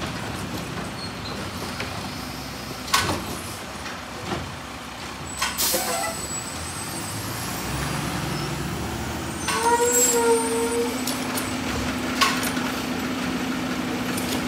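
Mack LR garbage truck's engine running as the truck moves along the street, with a short hiss of its air brakes about five and a half seconds in and a few sharp clanks.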